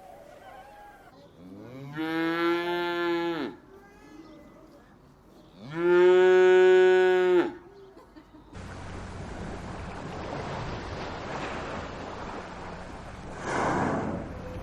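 Cattle mooing: two long calls, each about a second and a half, that rise in pitch at the start, hold steady, then drop away, the second louder than the first. About two-thirds of the way in they give way to a steady hiss of background noise, with a brief louder swell near the end.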